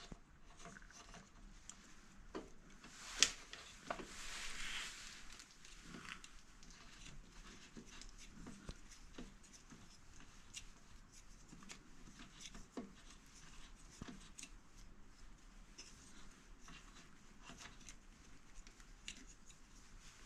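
Faint clicks and light scrapes of a greased bicycle pedal being threaded into the crank arm by hand. There is one sharper click about three seconds in and a brief rustle just after.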